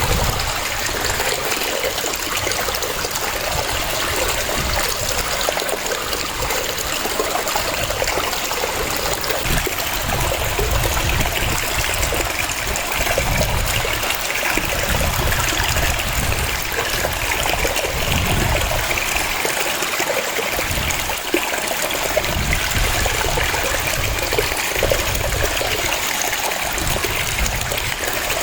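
Waterfall: water cascading and splashing in a steady, continuous rush, with an uneven low rumble underneath.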